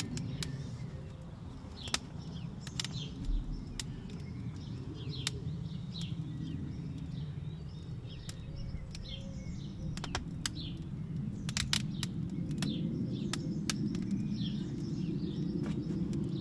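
Wood fire burning hard in a stoked wood-fired bread oven, crackling with sharp, irregular pops over a steady low rumble. Small birds chirp in the background.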